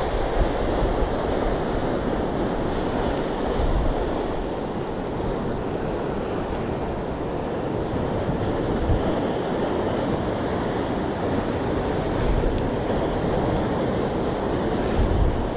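Sea surf washing and breaking against the rocks below, a steady rush of water, with wind rumbling on the microphone now and then.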